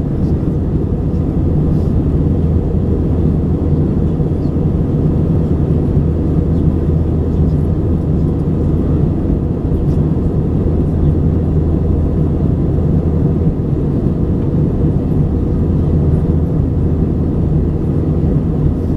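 Steady cabin noise of an Airbus A320 in cruise, heard inside the cabin: an even, low rumble of the engines and the airflow past the fuselage.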